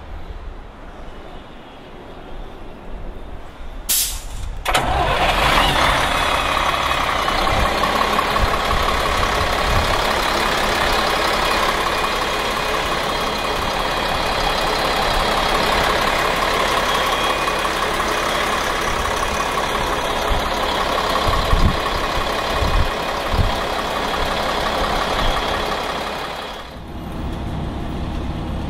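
Volvo Olympian double-decker bus's rear-mounted diesel engine: a sharp click about four seconds in, then it starts and runs steadily, the sound dropping away a couple of seconds before the end.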